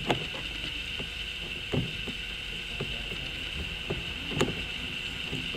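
Phillips screwdriver tightening the mounting screws of a rear license plate lamp through the bumper cover: scattered faint clicks and creaks, with sharper taps right at the start, near two seconds and about four and a half seconds in. A steady high-pitched hum runs underneath.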